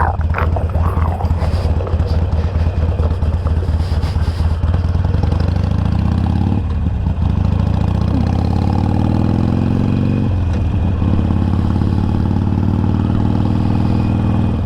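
Harley-Davidson Iron 883's air-cooled V-twin running with a lumpy, uneven beat, then pulling away with the pitch rising, dropping briefly at two gear changes about seven and ten seconds in, and settling into a steady cruise near the end.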